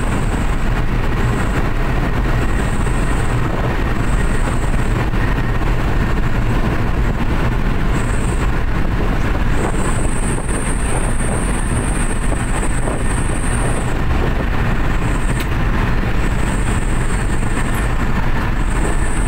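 Cab noise of a loaded Suzuki New Carry pickup at highway speed: its 1.5-litre four-cylinder engine running hard under an 800 kg load, with steady road and wind rumble. A high hiss comes and goes several times over it.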